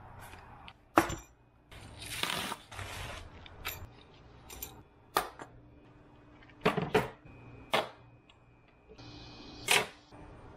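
A plastic mailer bag rustles as it is torn open, then come scattered sharp knocks and clicks as a plywood hatch door and hardware are handled on a plastic workbench.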